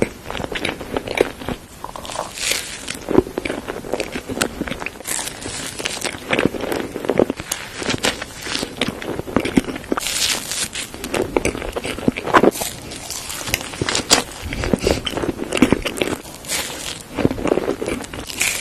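Close-miked eating of flaky egg tart pastry: bites and chewing with crisp crackling crunches and wet mouth sounds, irregular and continuous.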